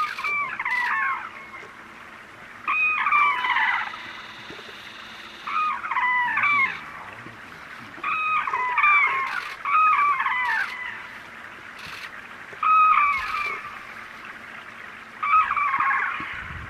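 White-naped cranes calling: about seven short bouts of loud rising-and-falling calls, one every two to three seconds.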